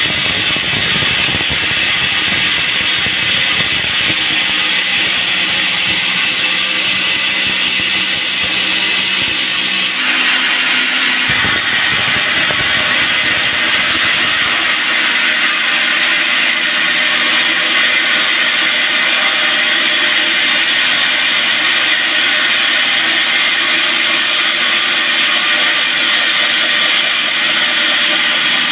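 Band sawmill running, its blade cutting through a log with a steady high-pitched hiss; a lower rumble under it drops away about halfway through.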